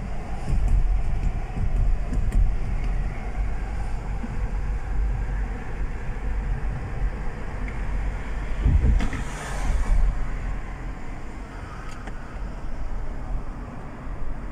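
Road noise inside a moving car's cabin: a steady low rumble of engine and tyres. About nine seconds in, a brief louder rush of noise swells and fades.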